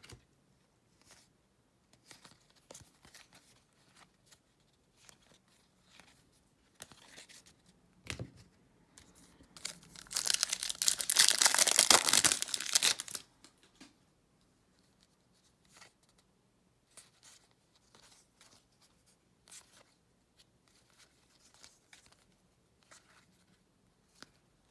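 A crimped plastic wrapper of a 2019 Topps Series 1 baseball card pack torn open: a loud crinkling tear lasting about three seconds near the middle. Before and after it, faint clicks and slides of cards being handled and flipped through.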